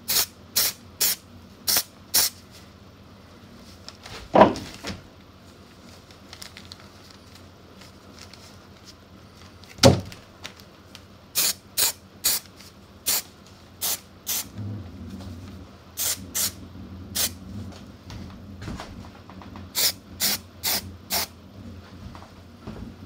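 Aerosol can of spray adhesive sprayed in many short hissing bursts, in quick clusters, onto pool table baize. Two louder knocks, about four and ten seconds in.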